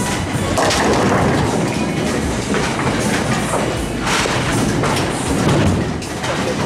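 Bowling ball crashing into the pins about half a second in, with the pins clattering, followed by the steady rumble and thuds of a bowling alley as balls roll and pinsetters work on the lanes.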